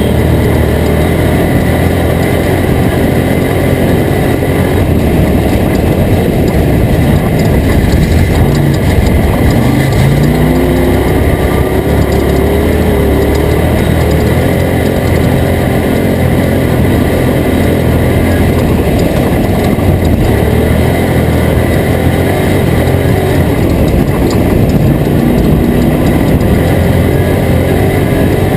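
Toyota Tacoma off-road race truck running hard, its engine pitch rising and falling as it revs, under a constant loud rush of noise and rattle.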